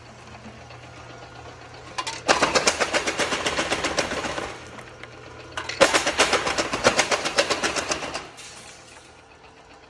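Jaw crusher running with a steady hum while crushing gold ore: two loud spells of rapid cracking, about two seconds each, as rock chunks are broken between the jaws.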